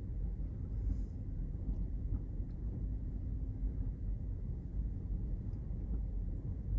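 Steady low rumble of a car ferry under way, with a faint steady hum.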